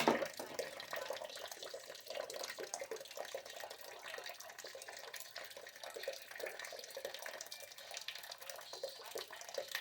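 Hot water from a steam boiler running and splashing steadily as it drains from the sight-glass fitting.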